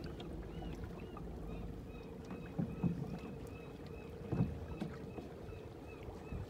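Steady low hum of a small boat under way on calm water, with a few soft low thumps about two and a half seconds in and again past four seconds.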